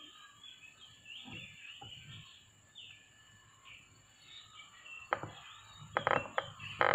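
Faint birds chirping in short high calls over a quiet background, then a few bursts of crackling rustle near the end.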